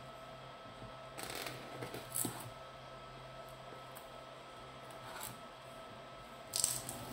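Scissors cutting and scraping along the clear plastic shrink wrap of a boxed camera: a few short scratchy strokes, about a second in, around two seconds, and the loudest near the end, over a faint steady hum.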